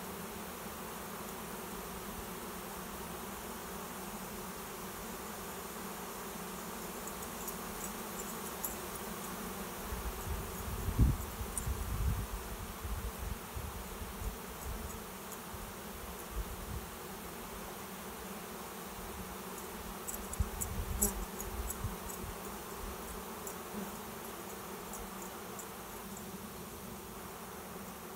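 A swarm of honey bees buzzing in a dense, steady hum as it flies around and settles into a swarm trap. Low rumbles break in about a third of the way through and again about two-thirds through.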